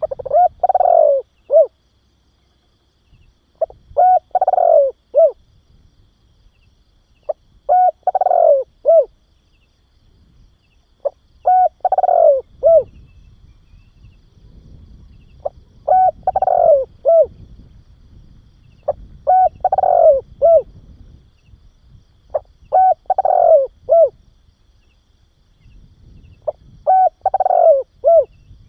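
Spotted dove cooing: a short phrase of a few notes with a longer arched coo in the middle, repeated eight times about every three and a half to four seconds.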